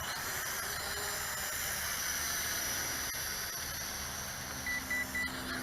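XK X250 quadcopter's motors and propellers running steadily in flight: a steady high whine over hiss. Three quick identical beeps come near the end.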